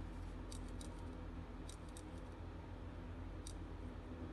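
Faint, scattered light clicks of a dial test indicator and surface gauge stand being handled on a granite slab, a few clustered in the first two seconds and one more about three and a half seconds in, over a steady low hum.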